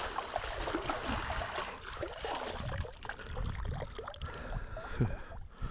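Water splashing and trickling with small scrapes and clicks, as a sieve scoop is dug into the bottom in shallow water and lifted so the water drains out.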